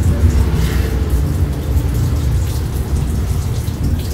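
Water running steadily from a tap into a sink, as a bowl or beaters are rinsed before whipping egg whites.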